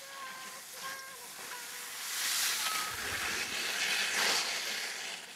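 Skis hissing and scraping over snow as a small child skis past close by, swelling twice in the second half. A brief voice calls out near the start.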